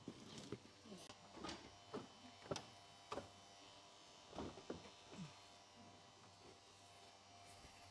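Irregular clicks and light knocks of hands working on a car's plastic front bumper as it is fitted, about a dozen in the first five seconds, then only a faint steady hum.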